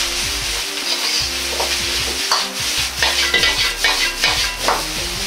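Shredded napa cabbage and other vegetables sizzling in oil in a wok while a metal ladle stirs and tosses them, scraping and knocking against the wok. The ladle strokes come more often in the second half.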